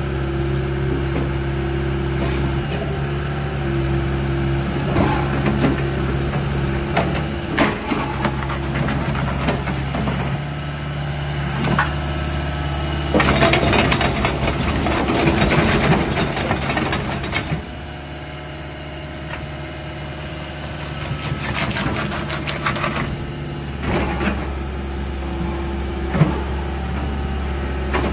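Hitachi hydraulic excavator's diesel engine running steadily while the boom and bucket are worked. The engine gets louder and harsher for a few seconds near the middle, then quieter, with scattered knocks.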